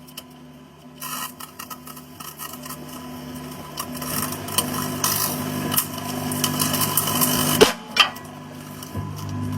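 Microwave oven running with its steady low hum, while something inside crackles and pops with many sharp snaps. The crackling starts about a second in, builds louder, and cuts off suddenly near the end, followed by a couple of clicks as the hum carries on.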